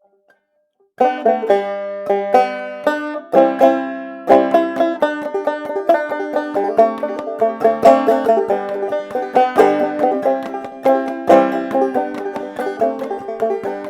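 Solo five-string banjo played clawhammer style: an instrumental introduction of quickly plucked, ringing notes with a steady rhythmic drive, starting about a second in.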